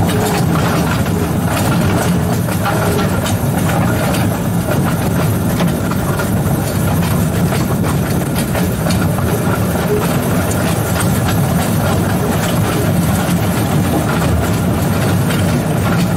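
2-foot-gauge electric locomotive running along the track, heard from its cab: a steady low hum from the drive, with wheel and rail noise.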